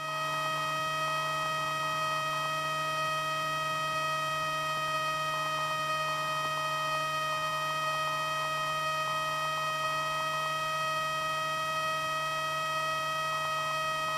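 Steady electrical hum with a high, even whine on a Cessna Skyhawk's intercom audio feed, unchanging throughout.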